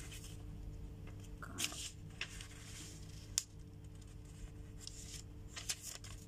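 Pages of a small paper warranty booklet being handled and turned: scattered short rustles and crisp ticks, the sharpest tick about halfway through, over a faint steady hum.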